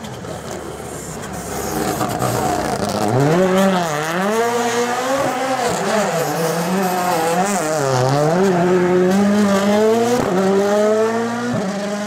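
Toyota GR Yaris Rally1 rally car's turbocharged four-cylinder engine working through a tarmac hairpin: it grows louder as the car approaches, then the revs repeatedly climb and fall sharply with gearshifts and braking, about four steep drops, before a long rising pull as it accelerates away near the end.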